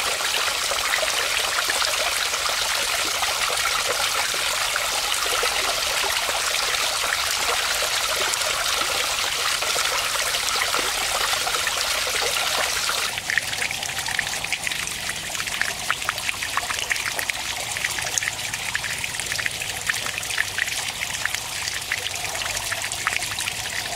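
Water trickling in thin streams off a ledge and splashing into a pond, a steady hiss. About halfway through it changes suddenly to a lighter flow of water running over rock, with many separate drips and splashes.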